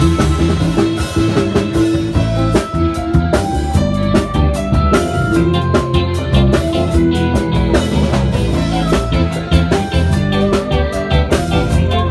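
Live band playing a rock-style song: electric guitars over a drum kit and keyboard, with a steady beat.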